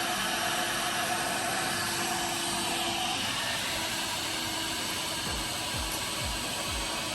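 Tefal X-Nano cordless stick vacuum running steadily on its normal power setting, without boost, with the small attachment fitted, a steady whine over the airflow. From about five seconds in, a run of low knocks joins it.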